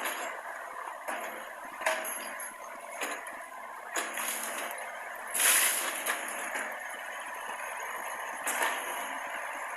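Mini excavator running steadily while handling building rubble, with a clank or knock about every second. The loudest is a longer burst of noise about five and a half seconds in.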